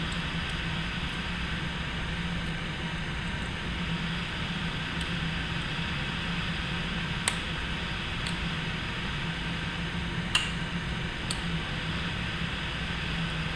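Small sharp metallic clicks of snap ring pliers and a steel snap ring being fitted into a linear bearing housing, a handful of them, the clearest about seven and ten seconds in. Under them a steady fan-like hum.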